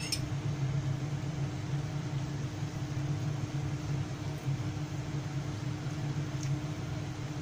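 Steady low machine hum with a hiss over it, unchanging throughout. A light clink of a metal fork on a china saucer right at the start, and a faint tick about six and a half seconds in.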